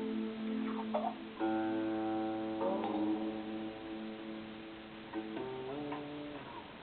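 Instrumental background music: slow, held notes that change a few times and grow gradually quieter toward the end.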